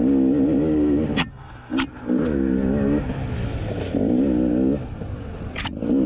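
2020 KTM 300 XC TPI two-stroke dirt bike engine in short bursts of throttle, its pitch rising and wavering in each burst and falling back between them as it picks through tight singletrack at low speed. A few sharp knocks come through, about a second in and near the end.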